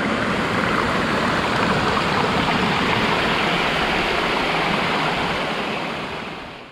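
Steady rush of flowing water from a mountain stream or waterfall, fading out near the end.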